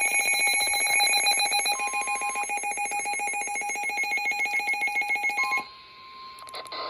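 Weather alert radio sounding its warning alarm as a loud, rapid pulsing beep. The beep cuts off about five and a half seconds in, leaving the steady NOAA Weather Radio warning alarm tone, with a couple of clicks near the end.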